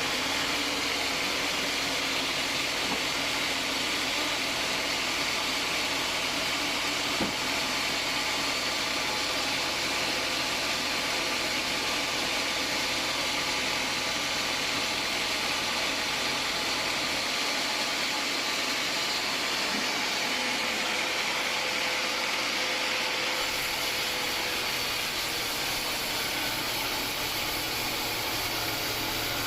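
Homemade band sawmill running steadily, with an even rushing machine noise and one small click about seven seconds in.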